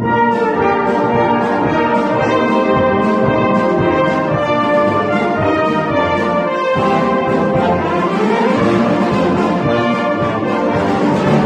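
Brass band playing, several instruments sounding chords together with notes changing steadily and a rising run of notes about two-thirds of the way through.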